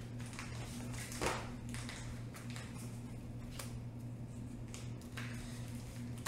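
Pokémon trading cards being handled and laid down on a floor: scattered short taps and slides, one louder about a second in, over a steady low hum.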